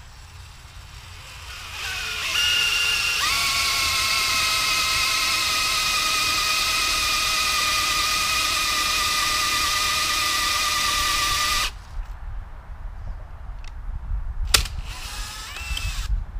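Cordless DeWalt power tool screwing a helical earth anchor into the ground: a motor whine that rises in pitch as it spins up, runs steady for about nine seconds, then cuts off suddenly. A sharp click and a brief short whine of the tool follow near the end.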